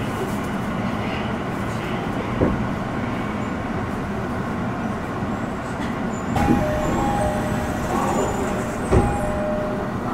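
Tokyo Metro Ginza Line 1000-series subway train heard from inside the car, a steady running rumble. A thump comes about two and a half seconds in, then others near six and a half and nine seconds, with brief humming tones in between.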